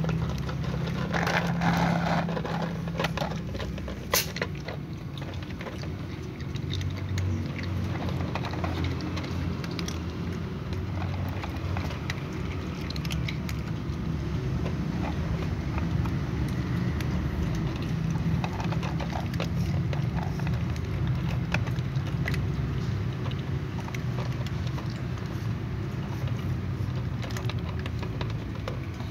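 Several cats crunching dry kibble at close range, a run of small crackly clicks over a steady low rumble, with one sharp knock about four seconds in.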